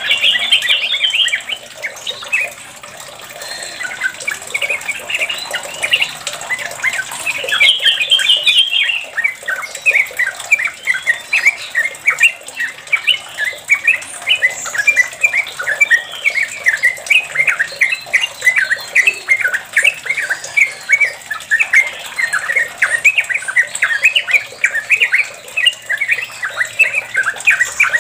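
Yellow-vented bulbul (trucuk) singing its long, rapid chattering 'ropel' song. A couple of louder, higher phrases come in the first third, then an unbroken fast run of short notes.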